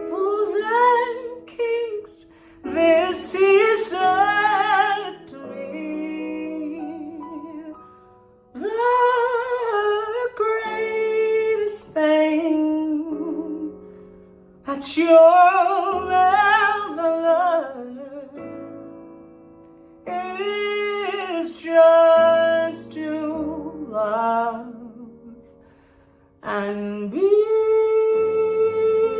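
A woman singing a slow jazz melody in phrases of a few seconds with short breaths between them, over a sustained chordal accompaniment.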